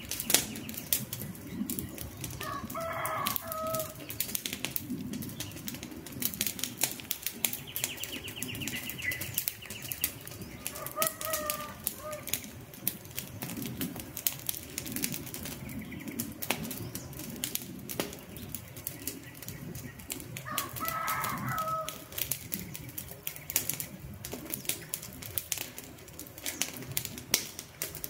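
Wood campfire crackling, with frequent sharp snaps and pops. A bird gives a short call three times.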